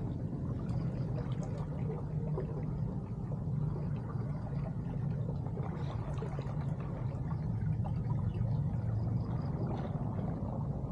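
Water running through a concrete drain culvert in a canal: a steady low rush with faint scattered splashes.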